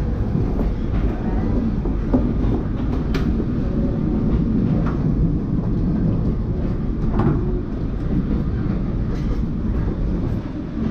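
Hanoi–Saigon sleeper passenger train running, heard from inside the carriage: a steady low rumble with a few faint knocks from the wheels and carriage.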